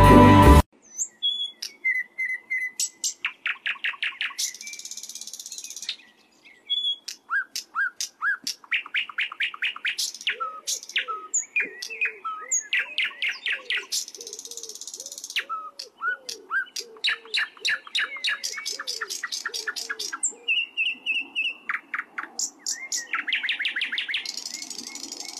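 Birds singing: rapid strings of sharp, falling chirps alternating with buzzy high trills and short whistled notes. A softer, lower, repeated warbling call runs underneath through the middle stretch.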